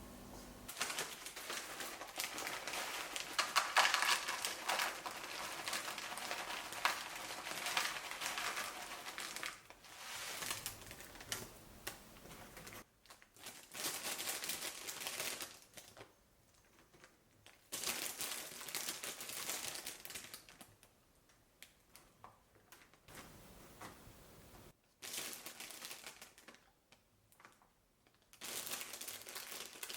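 Kitchen food-preparation handling noises: crinkling, rustling and quick clicking in bursts of a few seconds, with quiet gaps between them.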